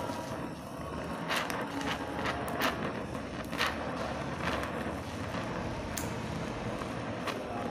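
Oxy-acetylene welding torch flame hissing steadily against a copper sheet, with scattered sharp crackles and pops, about eight of them.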